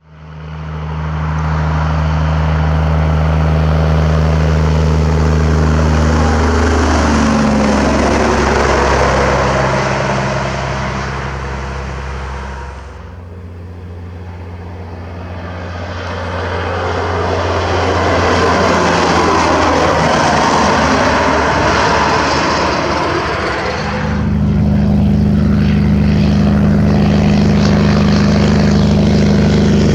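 Semi trucks going by on a highway: a steady diesel engine drone with tyre and road noise that swells as a truck passes, dips about halfway through, then builds again for a second pass.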